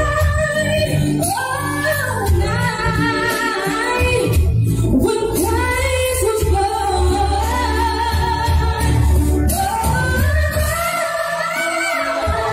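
A woman singing a high pop vocal line live into a microphone, with wavering vibrato and quick melismatic runs, over a backing track with a steady heavy bass.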